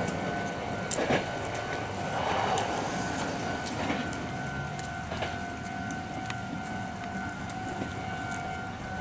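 Railway level-crossing alarm sounding with a steady two-part tone, while a departing Meitetsu 100 series electric train clatters over the rails with scattered clicks.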